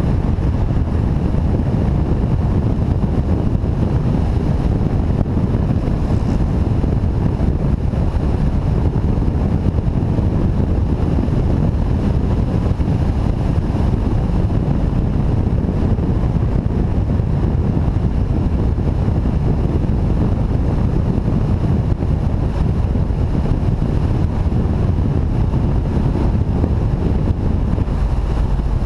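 Motorcycle riding at road speed: a steady rush of wind on the GoPro's microphone, with the engine running underneath.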